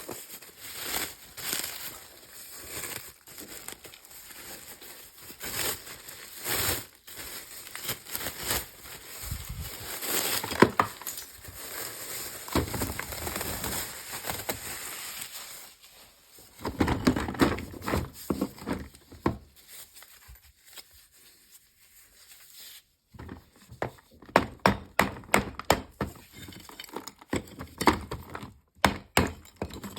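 Biting and chewing a hard edible chalk ('Akbulak'), giving loud, crisp, ringing crunches. For the first half it is a dense crackling and crushing. After a quieter spell, a steady run of sharp chewing crunches begins, about two to three a second.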